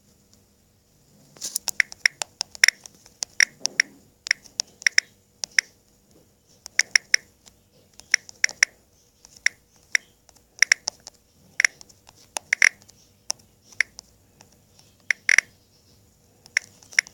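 Typing on a phone: irregular runs of short, sharp taps and clicks, in quick bursts with pauses between them.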